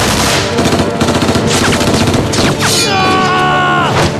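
Heavy gunfire: many shots in quick, overlapping volleys, under dramatic music. In the last second or so a long held cry with a falling end rises over it.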